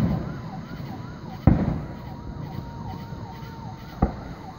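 Fireworks shells bursting in the sky: three booms, one at the start, the loudest about a second and a half in, and another about four seconds in. Under them a siren wails the whole time in fast, repeated rises and falls.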